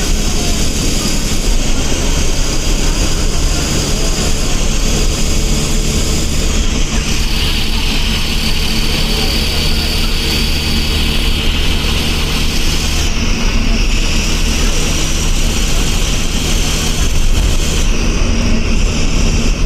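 Eicher bus diesel engine running steadily at road speed, heard from inside the driver's cabin together with tyre and road noise.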